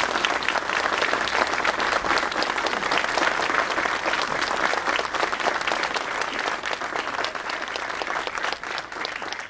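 Crowd applauding, easing off slightly near the end.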